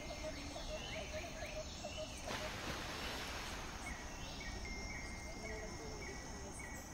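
Outdoor ambience with high-pitched wildlife chirping: a held chirp in the first couple of seconds, then a run of short chirps, about two a second, in the second half. Under it is a steady hiss, with a brief rush of noise about two seconds in.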